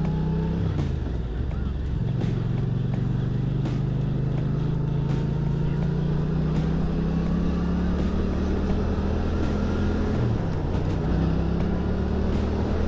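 Yamaha MT-07's 689 cc parallel-twin engine running under way with road and wind noise. Its pitch dips briefly about a second in and again near the end, climbing steadily in between and afterwards as the bike accelerates.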